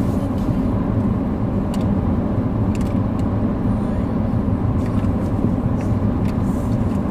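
Steady engine and road noise inside the cabin of a car driving along, with a few faint ticks.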